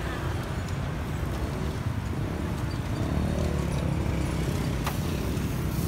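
Busy street ambience: a steady low rumble of road traffic, with a sharp click about five seconds in.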